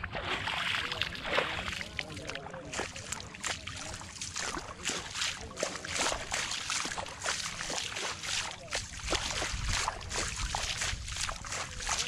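Footsteps sloshing and splashing through a flooded, muddy rice paddy: a run of short wet splashes, one after another, over a steady low rumble.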